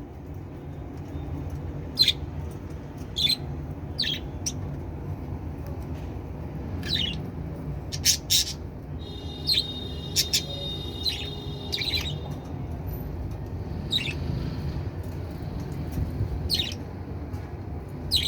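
Budgerigars calling: short, sharp chirps every second or so, with a spell of warbling chatter about halfway through, over a steady low rumble.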